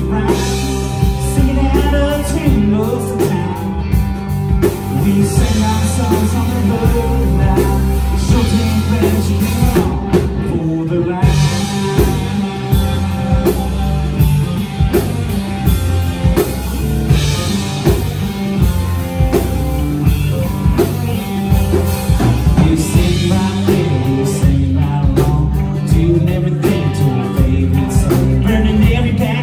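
Live rock/country bar band playing a song with drums, guitar and a singer.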